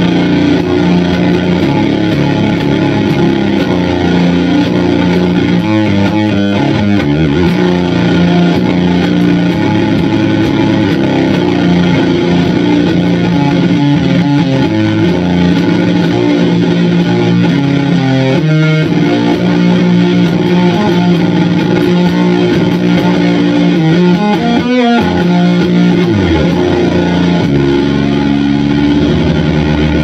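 Electric guitar played through a Doppelganger Effects Brazen Bull one-knob fuzz pedal, switched on: a slow fuzz-distorted riff of long held notes and chords that change every few seconds, loud and unbroken.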